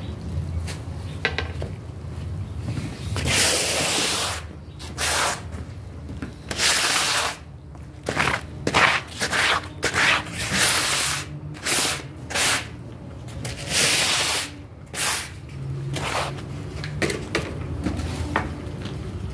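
Water jet spraying onto a wet, soapy rug and the floor around it in repeated short hissing bursts, rinsing off the suds, over a low steady hum.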